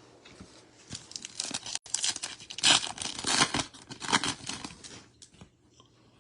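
Trading card pack wrapper being torn open and crinkled, a run of crackly tearing and rustling that is busiest in the middle and trails off near the end.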